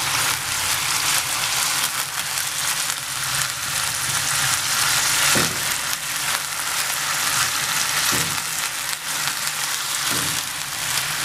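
Boneless chicken strips sizzling in hot oil in a nonstick frying pan. A spatula stirs and turns them now and then.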